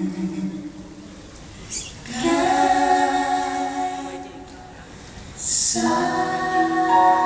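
Music: long held sung notes in two phrases, with a short hiss just before the second phrase begins.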